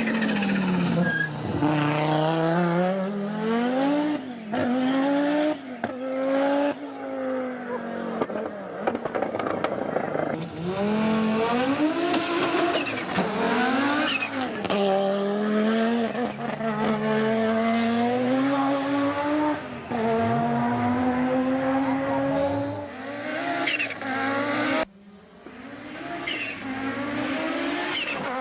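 Audi Quattro Group B rally car's turbocharged five-cylinder engine revving hard, its pitch climbing under load and dropping again over and over as the driver shifts and lifts. There is a sudden break near the end.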